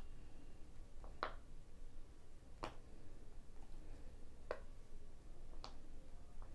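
Chicken curry simmering in a pan, the thick turmeric gravy bubbling with a sharp pop every second or so as bubbles burst.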